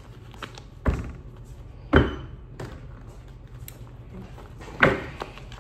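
Tarot deck being hand-shuffled, the cards slapping together in a few sharp taps, three louder ones about a second in, two seconds in and near the end.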